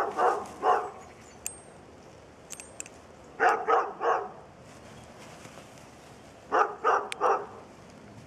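A dog barking in quick runs of three, the runs coming about every three seconds.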